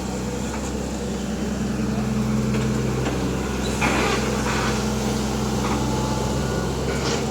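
Hitachi Zaxis 120 excavator's four-cylinder diesel engine running steadily, with a brief louder rush of noise about four seconds in.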